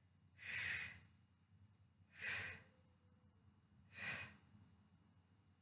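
A woman breathing out hard through the mouth, three short breaths about two seconds apart, exhaling with each lift of a dumbbell during shoulder rotations.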